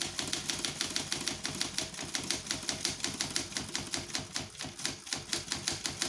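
Facit typewriter typebars striking in a fast, even run of about eight strokes a second: a repeated key typing out a line under a heading. A steady low hum sits beneath the strikes.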